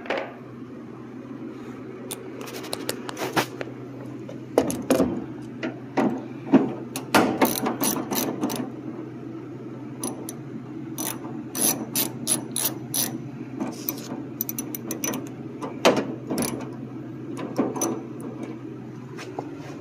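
Ratchet wrench clicking in irregular runs of quick clicks as 10 mm bolts inside a car door are worked loose.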